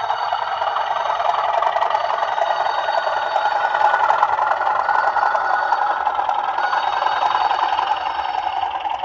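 Bachmann OO gauge Class 37 model locomotive's DCC sound decoder playing a steady English Electric diesel engine sound through its small onboard speaker, thin with little bass.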